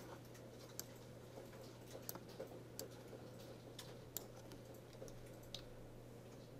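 Faint, scattered clicks of a computer keyboard and mouse, a handful spread irregularly over the seconds, over a steady low electrical hum.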